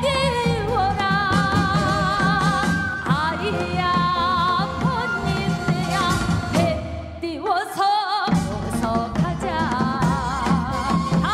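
Korean traditional (gugak) singing: a voice holding long notes with wide vibrato over instrumental accompaniment, which drops away briefly a little past halfway.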